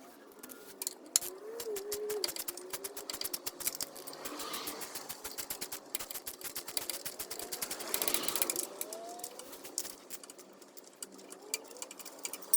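Ratchet wrench clicking rapidly and unevenly as the 13 mm bolts holding a car's lower radiator support are backed out.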